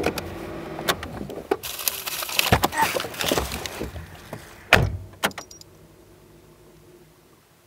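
Rustling and clicking inside a parked car, then a car door shutting with a thump about five seconds in, after which only a faint steady background remains.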